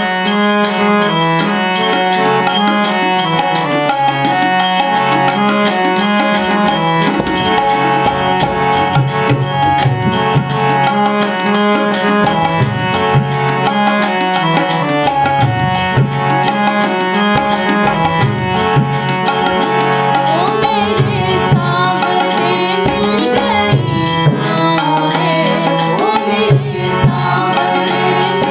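Harmonium playing a bhajan melody with tabla accompaniment, the tabla strokes growing stronger about seven seconds in. A singing voice joins about twenty seconds in.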